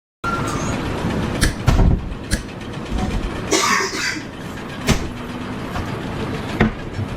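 A steady engine rumble with several sharp knocks and a short hiss about halfway through.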